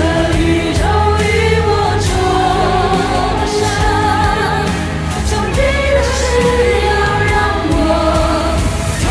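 A pop ballad song with singing: a held, wavering vocal line over steady accompaniment with a sustained low bass.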